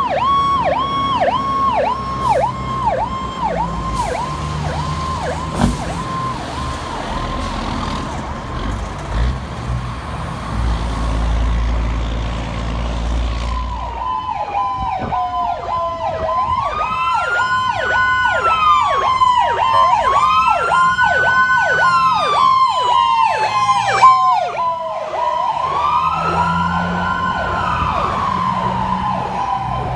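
Fire truck sirens: an electronic siren yelps rapidly for the first several seconds, then fades under a low vehicle rumble. About halfway through the fast yelp returns, joined by a second siren that winds slowly up and back down three times.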